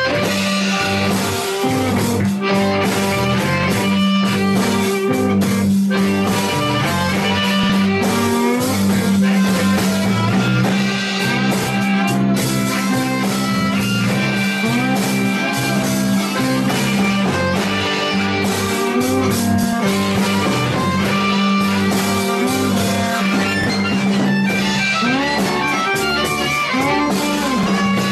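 Electric blues band playing live without vocals: slide guitar over bass and drums, with sustained notes and sliding pitches.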